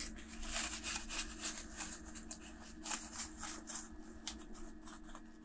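Gloved hands wiping a plastic laptop top-case frame with a white wipe: soft, intermittent rubbing and light handling ticks, over a faint steady hum.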